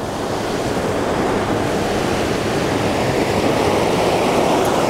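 Smith River water rushing past the rocks, a steady wash of noise that swells slightly over the first second or two.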